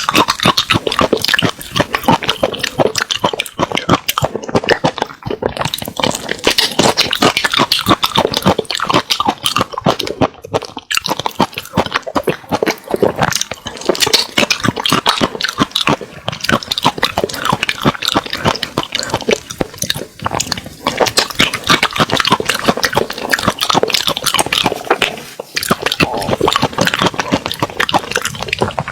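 Wet chewing, smacking and slurping of saucy spicy seafood, close to the microphone, a dense run of sticky clicks.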